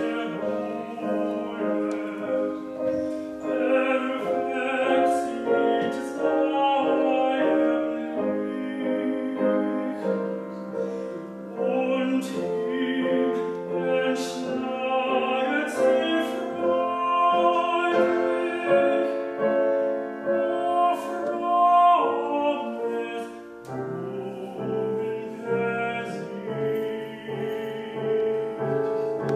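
A male classical singer performing a German Lied with piano accompaniment, his voice rising to a high note about 21 seconds in. The voice then stops and the piano plays on alone for the last few seconds.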